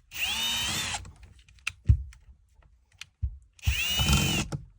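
Power drill driving a screw into wood framing: two runs of about a second each, near the start and again past the middle. The motor whines up in pitch and then holds steady. A couple of knocks fall between the runs.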